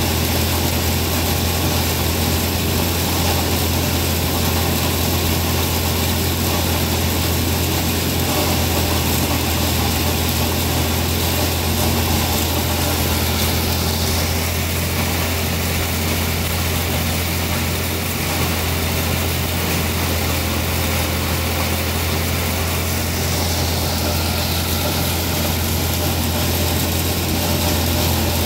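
Tractor engine and corn grinder running steadily while grinding ear corn: a loud, unbroken machine drone with a strong low hum.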